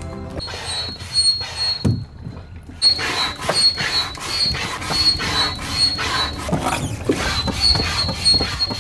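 Hand barrel pump being worked quickly to inflate a deflated inflatable dinghy. The piston squeaks high on each stroke, several strokes a second, with a short pause about two seconds in.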